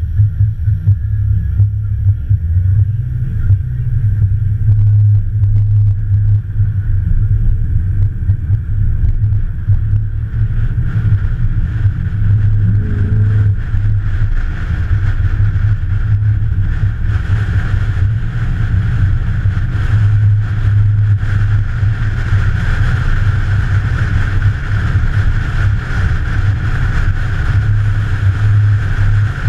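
A car engine running steadily, a deep, even drone that holds throughout.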